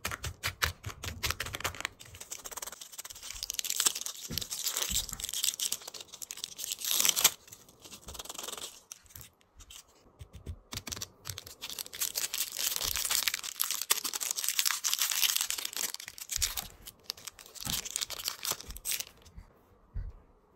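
Plastic candy wrappers being torn open and crinkled by hand: irregular bursts of crackling and rustling, with a lull about halfway through, dying away near the end.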